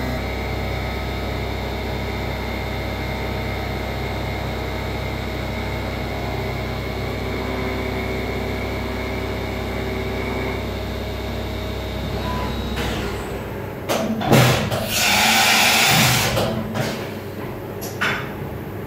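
Grawostar CNC Master milling machine's spindle running steadily with several fixed tones as the end mill cuts an aluminium plate; the cutting stops about two-thirds of the way in. A loud hiss lasting about two seconds follows, with a shorter one near the end, as the spindle moves off the work.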